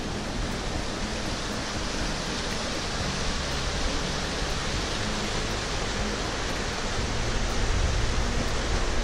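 Whitewater rapids rushing over boulders in a small rocky river: a steady, dense water noise that grows a little louder near the end.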